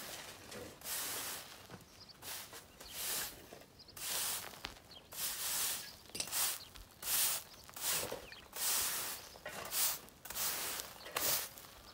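Long-handled push broom with stiff bristles sweeping dry, dusty dirt ground: scratchy swishing strokes about one a second.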